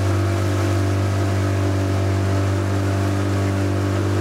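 Engine running steadily at an even speed, a constant low hum with no change in pitch.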